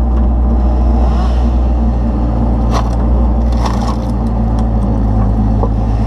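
Kubota KX161-3 mini excavator's diesel engine running steadily while its homemade splitter attachment drives through a log round, the wood cracking sharply about three seconds in and again a moment later as it splits into firewood.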